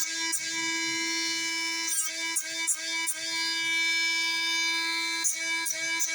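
Background music with a steady beat: a sustained instrumental note over a regular ticking rhythm.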